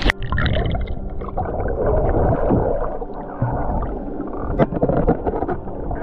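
An action camera goes under the water. The open splashing hiss cuts off at once, and muffled underwater gurgling and bubbling follow as the swimmer moves, with a few sharp clicks near the end.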